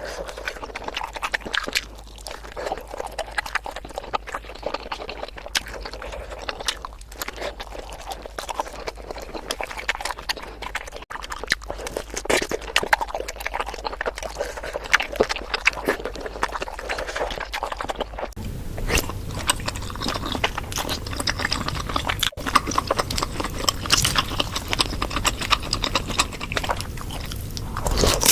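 Close-miked ASMR eating sounds: chewing of spicy bakso meatballs, with many quick wet mouth clicks. About eighteen seconds in it cuts to another eater, busier and with a steady low hum beneath.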